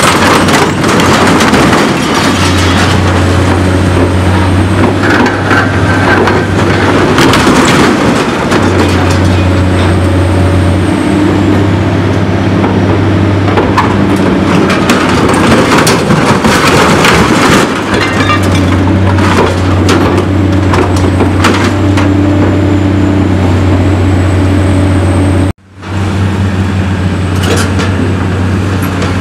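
Hydraulic demolition excavator running under load while its shear crushes and tears a steel skip container, with repeated cracking, crunching and clattering of metal and rubble over the engine's steady hum. The sound cuts out abruptly for a moment about 25 seconds in, then excavator engines and demolition noise resume.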